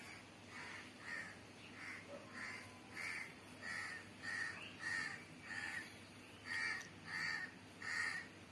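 A bird calling over and over: a run of short calls, about three every two seconds, louder in the second half.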